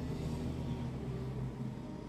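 Diesel engine running at low revs, a steady low hum heard from inside a truck cab; its deepest part weakens about one and a half seconds in.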